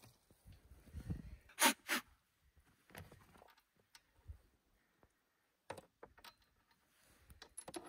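Scattered knocks and clicks of hand work on the snowmobile's engine, with two louder sharp knocks close together about a second and a half in.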